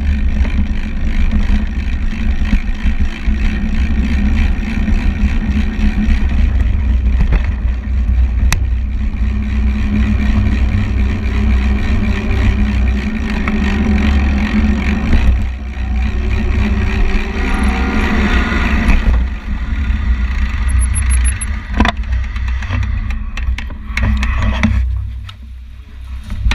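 Wind buffeting the microphone of an action camera on a mountain bike moving along a paved road: a constant, heavy low rumble. It eases off briefly near the end.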